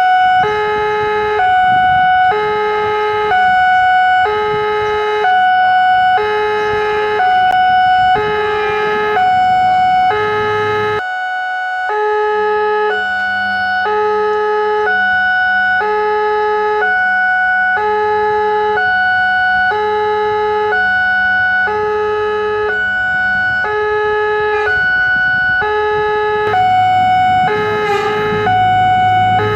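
Railway level-crossing warning alarm sounding: two alternating electronic tones, a lower and a higher note, switching about once a second. A low engine rumble rises near the end.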